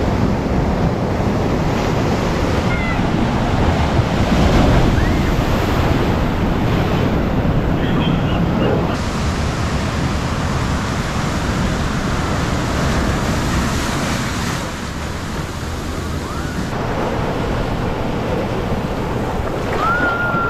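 Ocean surf: waves breaking and washing over rocks and sand in a steady, loud rush, with some wind on the microphone.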